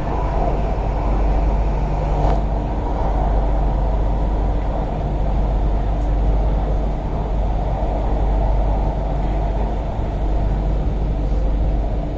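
Cabin noise aboard an MTR Island Line Q-Train running between stations: a steady low rumble of wheels on rail and running gear in the underground tunnel, with one brief click about two seconds in.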